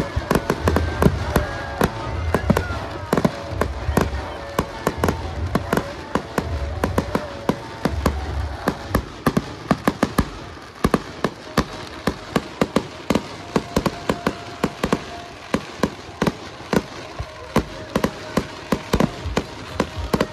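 Aerial fireworks going off in quick succession: a dense run of sharp bangs, pops and crackles, with a pulsing low rumble under them for roughly the first half.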